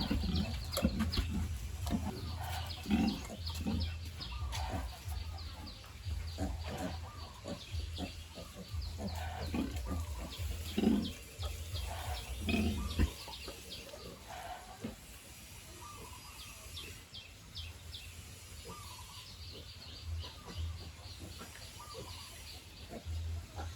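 Sow grunting in short low grunts every second or two while piglets squeak, the sounds of a sow nursing her litter; the grunts thin out about halfway through.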